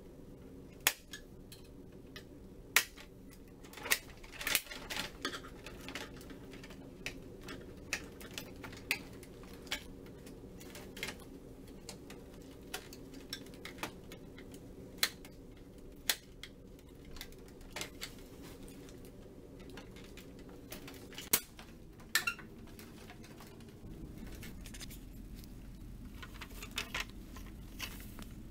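Irregular sharp clicks and knocks of the Kyocera printer's plastic panels and parts being handled and unclipped by hand, over a steady low hum.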